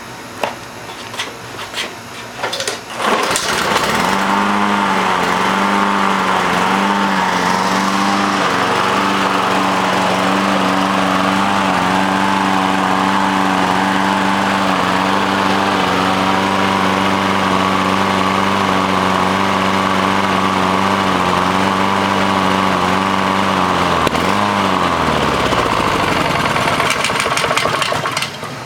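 Lawn mower's small engine starting after a few clicks, then surging, its speed going up and down for several seconds before it settles and runs steadily. Near the end its speed sags and it stalls: the mower's known fault, which a mechanic traced to water in the carburetor.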